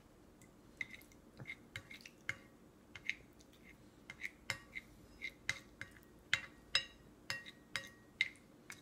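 Light, irregular clinks and taps of tableware, each with a short metallic ring, coming more often and louder in the second half.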